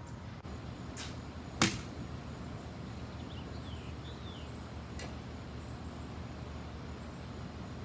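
One sharp knock about a second and a half in, with two fainter clicks, one just before it and one about five seconds in, over a steady low outdoor hum. A bird chirps a few times midway.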